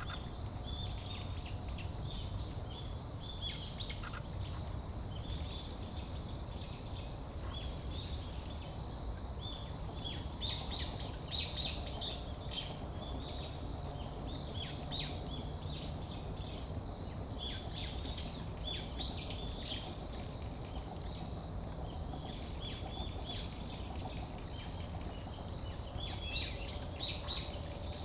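A steady, finely pulsing high-pitched insect trill runs throughout, with many scattered bird chirps and calls over it, busiest in the middle and again near the end. Under both lies a low, steady rumble.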